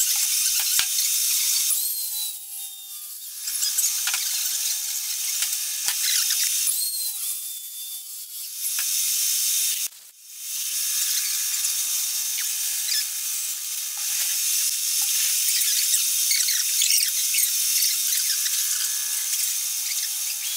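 Hand-ground HSS fly cutter on a horizontal mill cutting escapement teeth in a solid brass slug: a steady high cutting hiss, easing off briefly about two seconds and seven seconds in and dropping out for a moment about ten seconds in.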